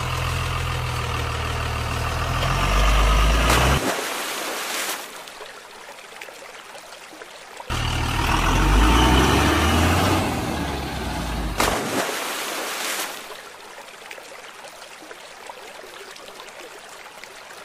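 Heavy truck engine sound running and rising in two stretches of about four seconds each, both starting and stopping abruptly, with a quieter rushing noise between them and near the end.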